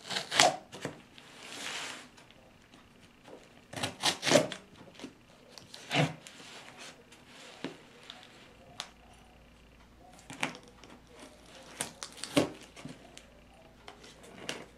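Cardboard shipping box being handled and turned on carpet: scattered knocks and taps, with a short scraping rasp about a second and a half in.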